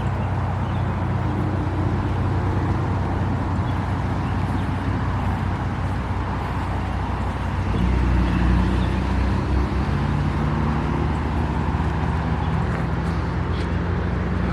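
A motor vehicle's engine running with a steady low hum, getting louder about eight seconds in.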